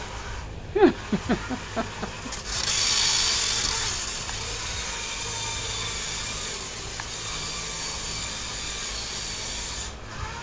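Small electric remote-control drift car running across a smooth floor: a steady high-pitched motor whine with a hiss of tyres sliding on the floor, loudest about three seconds in. A few short squeaks come about a second in.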